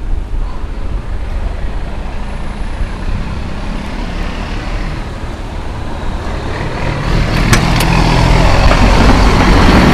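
A motor vehicle's engine running with a steady low rumble, growing louder about seven seconds in.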